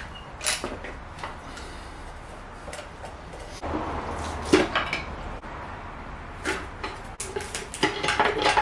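Hand tools working on the timing cover of a 1.0-litre EcoBoost engine: scattered metallic clicks and knocks as the cover bolts are undone, then a quicker run of clicks and scraping near the end as the cover is pried loose.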